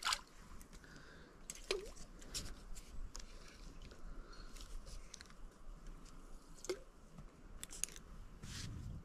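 Faint, irregular crunching and rustling of dry leaves and brush, as of someone moving through undergrowth, with scattered sharp crackles.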